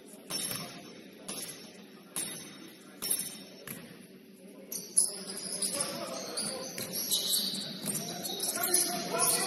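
A basketball bouncing on a gym floor about once a second. From about halfway through, sneakers squeak on the court amid players' voices.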